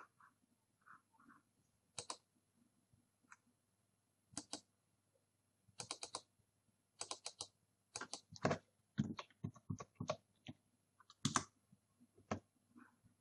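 Irregular sharp clicks of a computer mouse and keyboard, many in quick clusters of two to five, as when double-clicking and picking several files.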